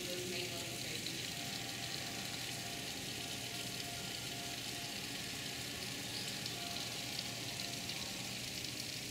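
Heavy rain falling on pavement and lawn, a dense, even hiss that holds steady throughout.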